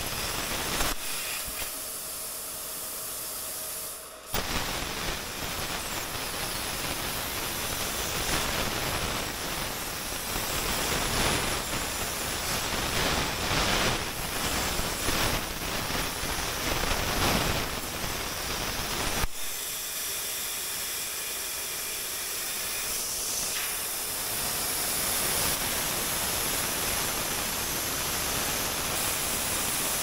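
ArcDroid portable CNC plasma cutter cutting scrap sheet steel: a loud, steady hiss. Twice it drops back to a thinner, higher hiss, briefly about a second in and again after about nineteen seconds.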